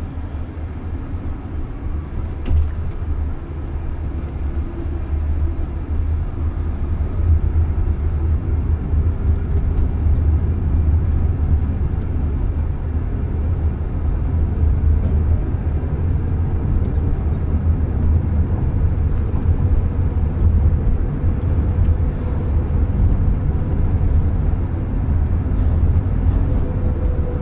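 Cabin noise of a Jaguar I-Pace electric SUV driving at road speed: a steady low rumble of tyres and road, with a faint whine in the second half.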